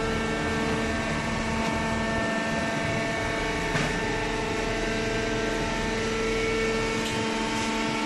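Hydraulic cardboard baler running: its motor and hydraulic pump give a steady hum with several steady whining tones.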